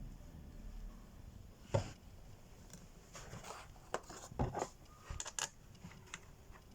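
Faint, scattered light clicks and knocks of hand work: one about two seconds in, then a cluster between four and five and a half seconds.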